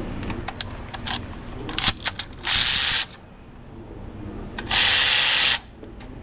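A power ratchet runs in two short bursts, about half a second and then nearly a second, spinning out the water pump bolts on a 5.7 HEMI. Light metallic clicks of tools and bolts come before the first burst.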